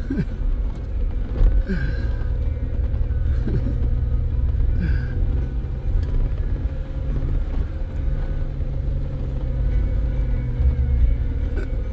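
Four-wheel-drive vehicle's engine running at low speed as it crawls over slickrock, heard from inside the cab as a steady low rumble. Its note settles into a steady drone about two seconds in.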